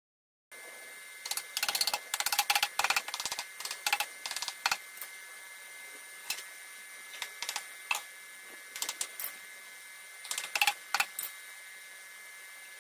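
Scattered light knocks and clicks of wooden strips being handled, set down and fitted against a plywood board, in quick clusters from about a second in and again near the end, over a faint steady high-pitched hum.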